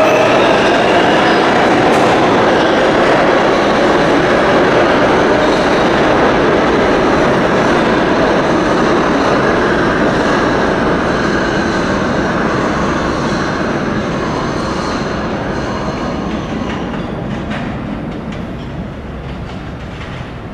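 New York City 7 line subway train running by: a steady, loud rumble of wheels on rail with faint high whining tones above it, gradually fading away over the last several seconds.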